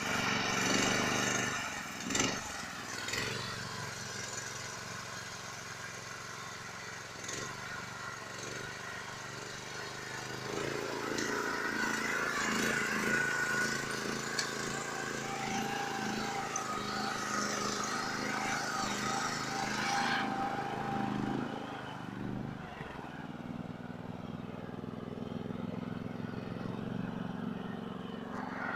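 Small engine of a homemade articulated karakat all-terrain vehicle running under load as it drives, with revs climbing from about a third of the way in and falling back near the two-thirds mark, and a few knocks early on.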